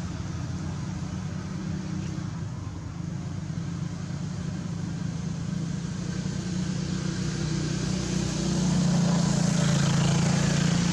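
A motor vehicle's engine running, a steady low hum that grows louder about eight seconds in.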